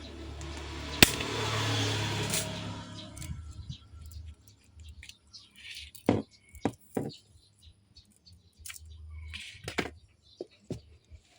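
Clicks and taps of hands and tools working on a smartphone: one sharp click about a second in over a brief hiss, then scattered short clicks.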